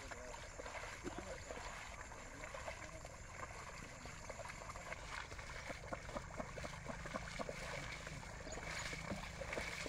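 Muddy water sloshing with many small splashes as a pair of oxen tramp through a flooded field and drag a levelling board behind them.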